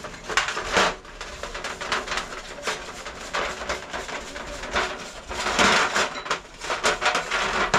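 Wire brush scrubbing the metal front variator (CVT drive pulley) of a TVS Jupiter 125 scooter over a steel tray, in irregular scratchy strokes, to clean off grime. The strokes are loudest a little past the middle.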